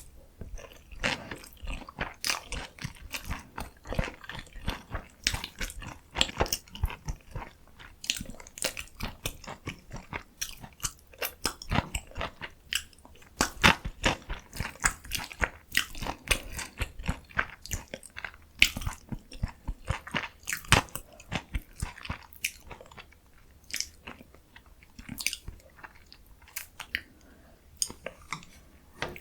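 Close-miked eating: a person biting, chewing and crunching spicy radish-kimchi noodles and kimchi dumplings in a dense run of crisp clicks and crunches. The bites thin out and get quieter about two-thirds of the way through.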